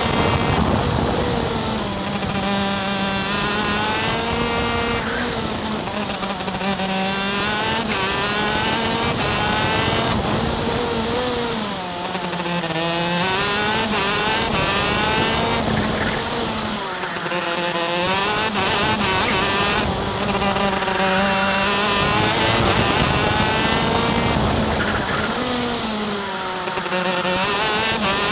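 Superkart's 250 cc two-stroke engine at racing speed, heard onboard: its pitch drops sharply under braking into corners about six times and climbs again as it accelerates out.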